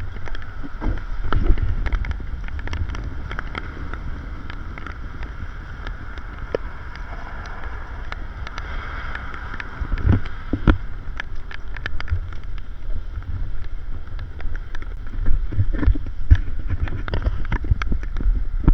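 Wind buffeting the microphone, a fluttering low rumble that rises and falls in gusts over a steady rushing hiss.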